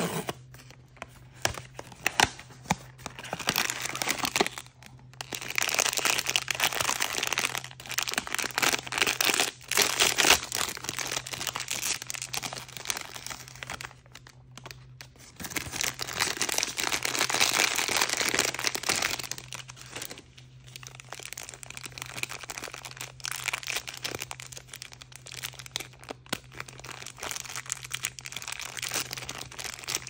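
Hands crinkling and tearing open blind-bag toy packaging in dense crackling bursts, loudest for several seconds in the first third and again a little past the middle.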